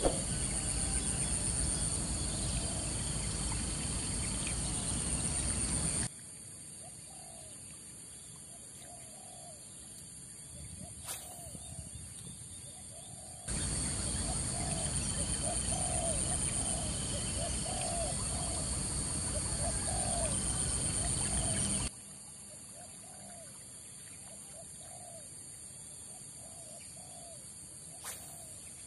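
Outdoor ambience: a bird calling in short, low notes repeated about every half second to a second, over a steady high insect drone. Two long stretches of louder rushing noise start and stop abruptly.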